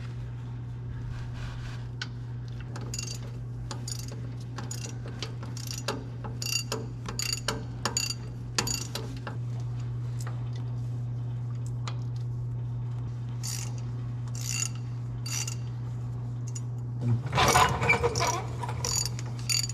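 Irregular metallic clicks and clinks of hand tools working on a tractor's transfer case during reassembly, over a steady low hum. About seventeen seconds in comes a louder clatter of metal.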